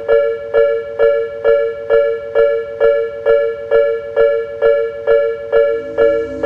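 Japanese railway level crossing warning bell ringing its steady electronic "kan-kan", a two-tone ding struck about twice a second.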